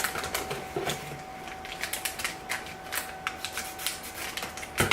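Blind-bag packaging crinkling and crackling in the hands as the next bag is torn and worked open, an irregular patter of small crackles with a sharper snap near the end.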